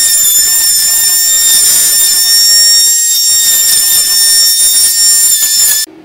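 Oscillating multi-tool running with a steady high-pitched whine while it cuts a grid of shallow lines into a wooden door frame patched with polyester filler, to form the recess for a latch strike plate. The tool stops suddenly near the end.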